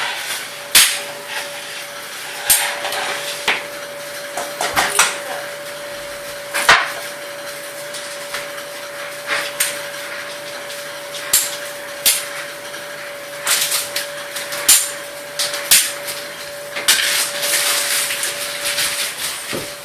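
Irregular knocks and clacks of hard toy kitchenware being handled and set down during pretend cooking, over a steady faint hum.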